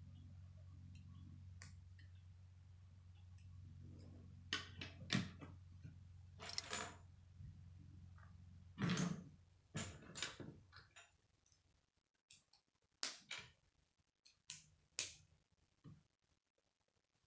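K'nex plastic rods and connectors being handled and snapped together: a dozen or so sharp clicks spread from about four seconds in, over a low steady hum that stops about eleven seconds in.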